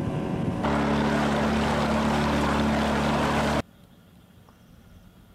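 Motorboat engine running steadily under way, its even drone mixed with wind and water rushing past. About three and a half seconds in it cuts off abruptly to quiet.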